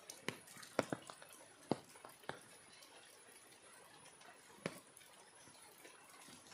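A few faint, sharp taps and clicks at irregular intervals, most in the first two and a half seconds and one more later, over a quiet background hiss.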